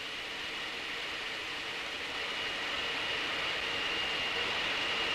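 Wind tunnel airflow: a steady rushing hiss with a thin high whine, growing gradually louder as the tunnel speed increases toward Mach 0.8.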